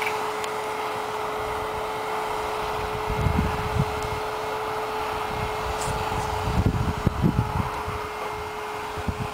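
A steady hiss and hum, with wind buffeting the microphone in low rumbles about three seconds in and again around seven seconds.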